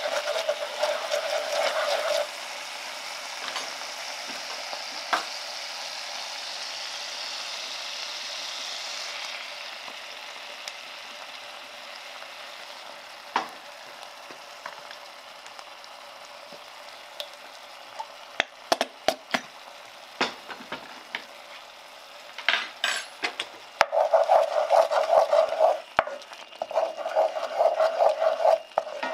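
Pork neck steaks and onions sizzling in an enamelled cast-iron pot, with stirring and scraping in the pan in bursts, about two seconds at the start and over the last five seconds, as a wooden spatula works a sauce in. A few sharp clicks of utensils come in between.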